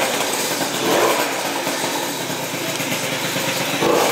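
Yamaha Zuma scooter's small two-stroke engine idling steadily.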